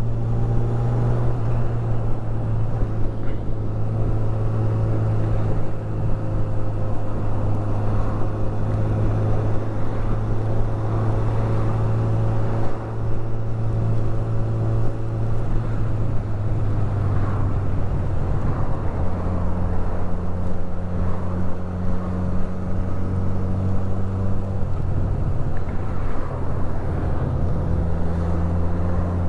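Honda CB1000R's inline-four engine, through its stock exhaust, running at a steady pitch as the motorcycle is ridden along.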